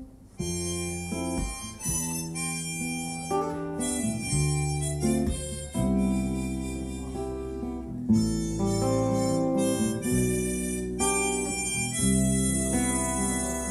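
Harmonica playing a melodic solo line, accompanied by acoustic guitar and bass, in a jazz-style acoustic arrangement; the music comes in about half a second in after a brief dip.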